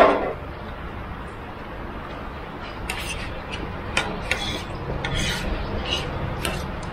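Scattered light clinks of cutlery against dishes during a meal, over a steady low background hum. About two-thirds of the way in, a low rumble of passing road traffic builds up.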